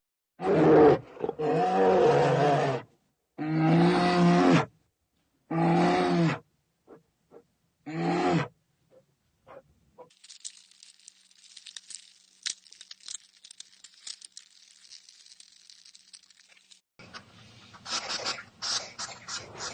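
A large animal giving a run of five low, drawn-out calls, each about a second long, followed after a quiet stretch by faint crackling and a rustling noise near the end.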